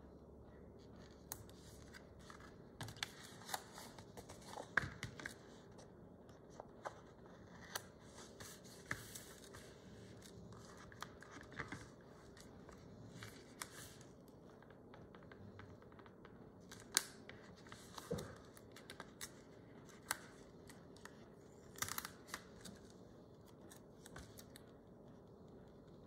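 Paper stickers being peeled from their sheets and pressed onto a planner page: quiet, irregular rustles, small peeling sounds and light taps scattered throughout.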